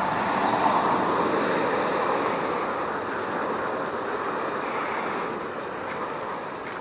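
Even rushing jet noise from the Gulfstream G550's two Rolls-Royce BR710 turbofan engines on landing approach, fading gradually as the jet flies away.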